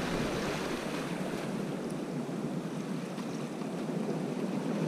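Steady noise of small waves lapping against a rock shore, mixed with wind on the microphone.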